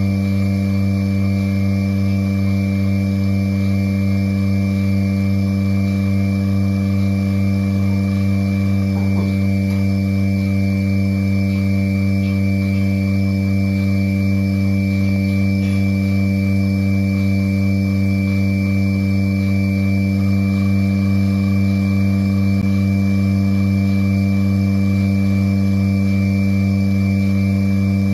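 Electric vacuum pump of a milking machine running with a steady, even hum.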